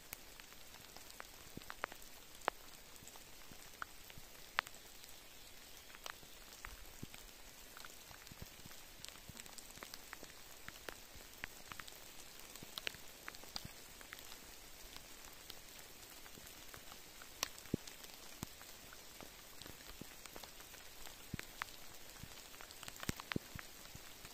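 Steady rain falling on rock, with individual drops landing close by as sharp ticks at irregular moments.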